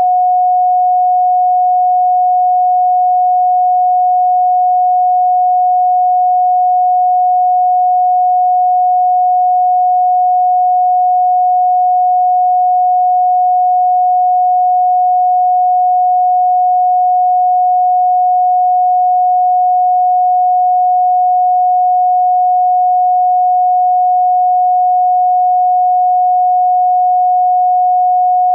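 A steady pure sine tone at 728.131 Hz, held at one pitch without a break or any change in loudness.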